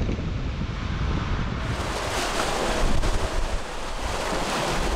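Wind noise buffeting the microphone over the rush of sea water along a sailing catamaran's hull as it runs through swell. The hiss of water becomes brighter about one and a half seconds in.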